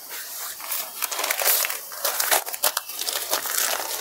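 Crisp folded saree fabric rustling and crinkling as it is handled and moved, with irregular short crackles.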